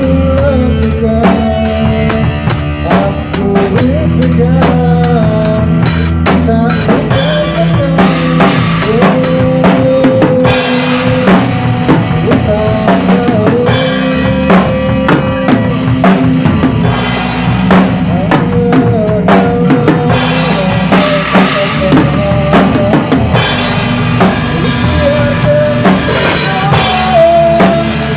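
Acoustic drum kit played with sticks in a busy groove of bass drum, snare and cymbal crashes, along with a recorded song whose melody line runs over the drums.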